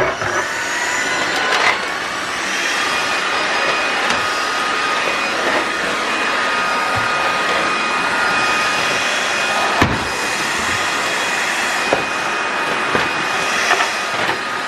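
Lubluelu Mate 40 cordless stick vacuum running steadily while vacuuming a floor: a loud suction rush with a thin steady whine over it. A few sharp clicks and knocks are heard, the loudest about ten seconds in.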